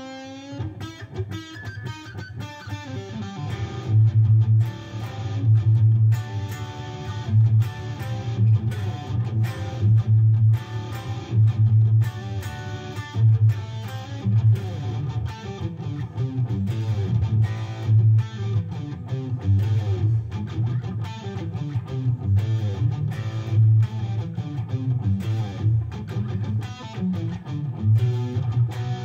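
Gibson Les Paul electric guitar playing rock riffs. After a quieter opening phrase it gets louder about four seconds in, with a low note struck again and again under quicker runs of higher notes.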